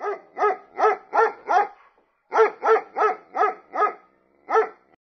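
A dog barking in two quick runs of about five barks each, roughly three barks a second, with a short pause between them and one last bark near the end.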